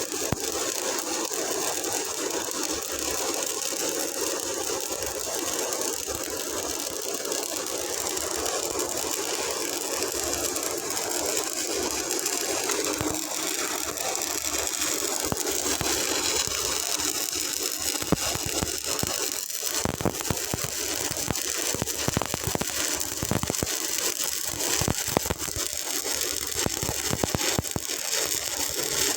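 Stick-welding arc crackling and hissing steadily, with sharper pops and clicks coming more often in the last third.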